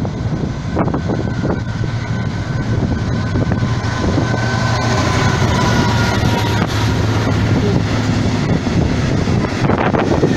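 A diesel-hauled train passing at speed: a steady low diesel engine drone with rushing wheel-on-rail noise, growing slightly louder as a GB Railfreight Class 66 diesel-electric locomotive passes close by near the end.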